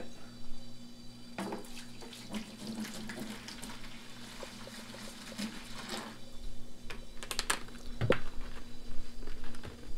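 Liquid running and splashing into a 5-gallon bucket, getting louder near the end, with a few sharp knocks and clicks. The bucket is being filled with vinegar and hot water to make a cleaning bath for a new pump.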